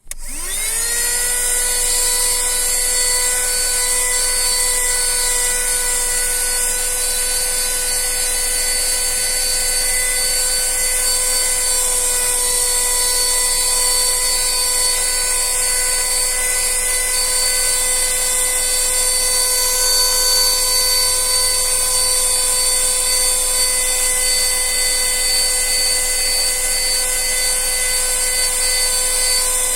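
ZDK Simple vacuum cleaner switched on, its motor spinning up within the first second to a steady whine over a high airy hiss, then running at constant speed.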